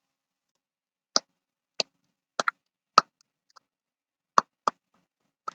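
A series of about eight short, sharp clicks at irregular intervals, two of them close together, with nothing heard between them.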